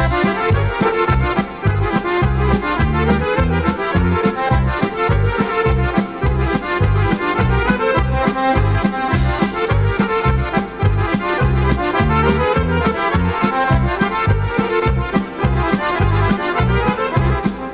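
Instrumental opening of a Serbian folk-pop song: accordion leading over a fast, steady bass beat, with no singing yet. The music starts abruptly at the beginning.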